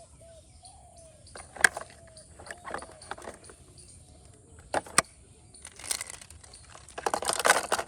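Small plastic toys being handled: a few sharp clicks and clacks, then a longer rattling clatter near the end.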